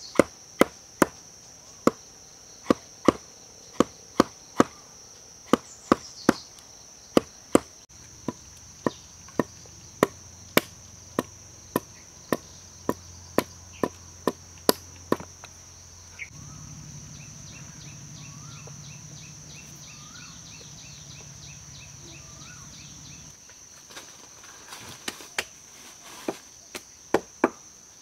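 Stone spearhead being knocked down onto the end of a bamboo shaft braced on a log: a quick series of sharp knocks, about two a second, that stops about halfway through, with a few more knocks near the end. A steady high insect drone runs underneath.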